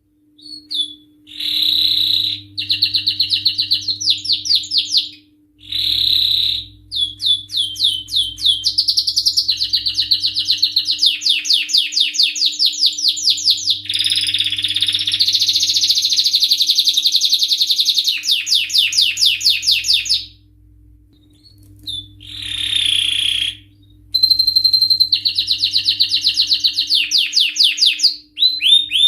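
Canary singing long phrases of fast rolling trills, each a quick run of repeated notes, with a few short pauses between phrases.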